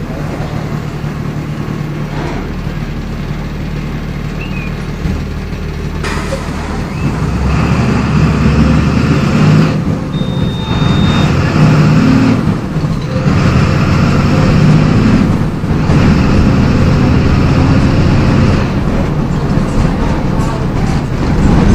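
MWM 6.12 TCAE six-cylinder turbodiesel of a Volksbus 17.210 bus running steadily, then growing louder under load about seven seconds in, with three short breaks in the engine note as it pulls.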